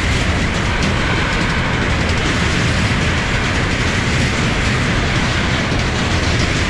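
Triumph motorcycle rolling slowly across a steel truss bridge, its tyres rattling over the deck in a steady clatter, with engine and wind noise beneath.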